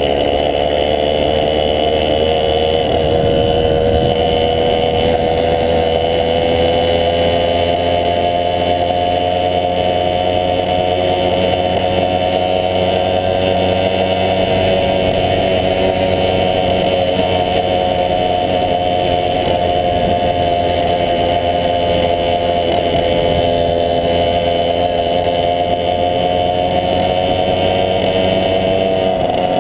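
The two-stroke engine of a 1971 Tunturi Maxi moped running steadily while riding, heard up close from the moped itself, with a slight dip in pitch a few seconds in.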